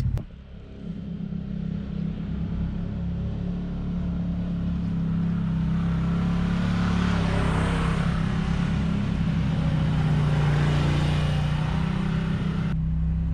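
Can-Am side-by-side UTV engine running at a steady, even drone while driving a rocky trail. It fades up over the first couple of seconds.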